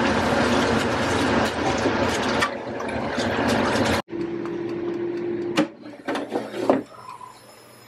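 A spoon stirring seasoned penne in an air fryer basket: a dense scraping and clicking of pasta against the basket. After that comes a steady low hum for a second or so, then a few sharp clunks as the basket is handled.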